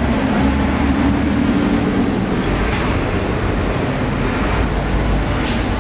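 Steady, loud rumble of street traffic close by, with a few light clicks in the middle and near the end.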